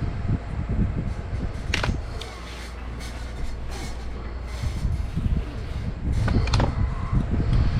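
Handling noise during an AR rifle teardown: a sharp metallic click about two seconds in, a few softer knocks in the middle and another sharp click near the end, over a steady low rumble.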